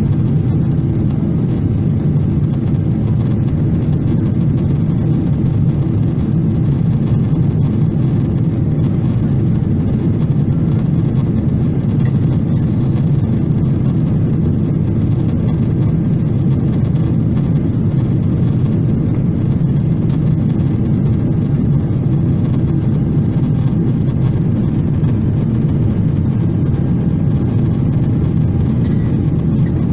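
Steady cabin roar inside a Boeing 777-300ER in flight: its GE90 turbofan engines and the airflow over the fuselage heard from a window seat. It is a deep, even rumble that holds the same level throughout.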